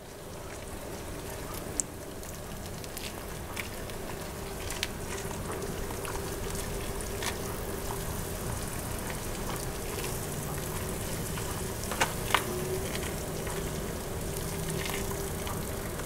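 Just-boiled water pouring in a steady stream from an electric kettle into a plastic microwave noodle bowl over dry instant noodles. The splashing trickle grows slightly louder as the bowl fills, with a few faint ticks.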